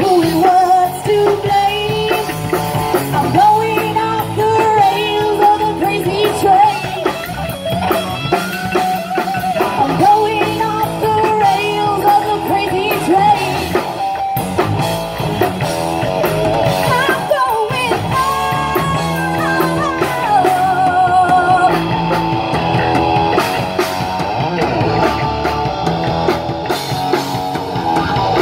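Live rock band playing: electric guitars, bass guitar, drum kit and keyboard, with a female lead vocal and a wavering melody line over a steady drum beat.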